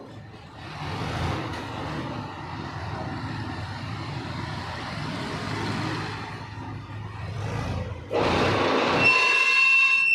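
Steady machinery noise that grows louder about eight seconds in, joined near the end by a steady high whine with several overtones.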